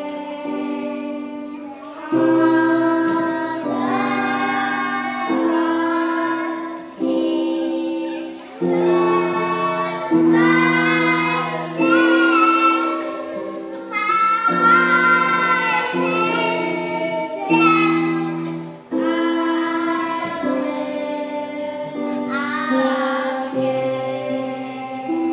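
A group of young children singing a song together over steady instrumental chord accompaniment.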